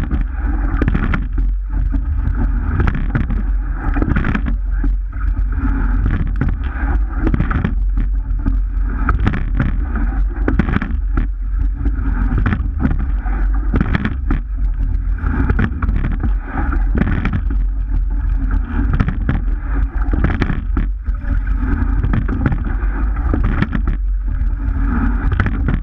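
Wind rumbling on a camera microphone on a rowing shell under way, over rushing water along the hull. Knocks recur about every one and a half to two seconds, in the rhythm of the crew's strokes.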